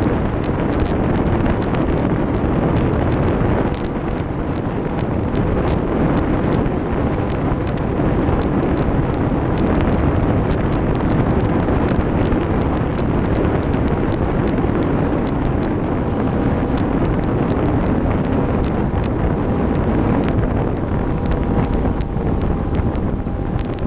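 Wind rushing over the microphone on the Stinson 108-3 in flight, with the steady drone of its engine beneath and frequent crackles from wind buffeting.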